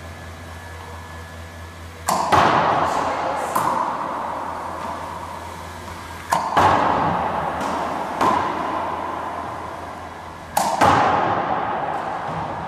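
Racquetball practice machine firing balls, three shots about four seconds apart. Each shot is a pair of sharp cracks as the ball is launched and smacks the court wall, with a long echo off the court walls, followed by a lighter bounce a second or so later.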